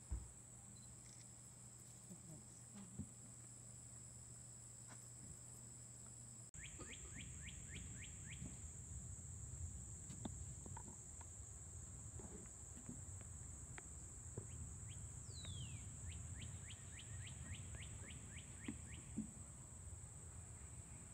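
A steady high-pitched insect drone of summer woods. Twice, a bird gives a quick run of chirps, the second time led by a falling whistle. About six and a half seconds in, a low rumbling noise joins in under it.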